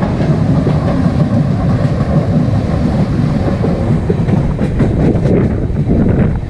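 Train running along the track: a steady loud rumble and rattle of wheels on rail, with a cluster of sharp clicks over rail joints about five seconds in.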